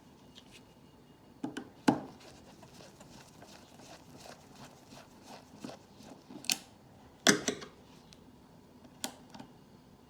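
Torx screwdriver and small screws clicking and tapping against the iMac's metal case while the screws are being removed. The clicks are scattered and irregular, with the loudest about two seconds in and about seven seconds in.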